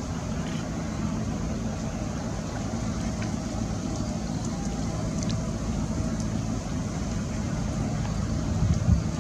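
Steady low engine hum, like distant traffic, with no change in level.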